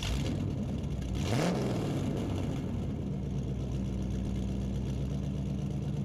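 An engine revving once, briefly rising in pitch about a second in, then running steadily at idle.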